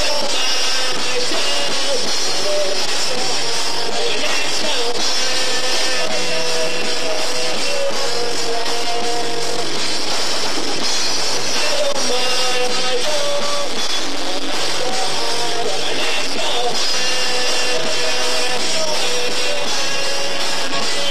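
Live rock band playing on without words: drum kit, electric guitar and saxophone, a continuous steady loud mix.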